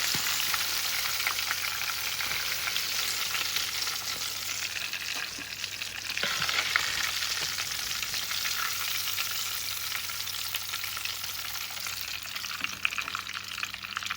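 Crusted fish pieces deep-frying in a pot of hot oil: a steady, crackling sizzle.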